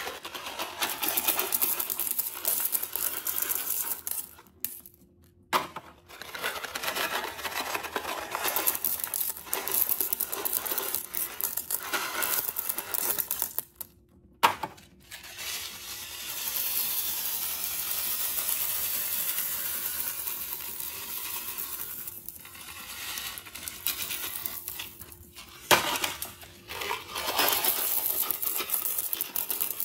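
Small candies pouring out of cardboard boxes and a tube and rattling onto a heap of candy in a toilet bowl, in several pours separated by brief pauses.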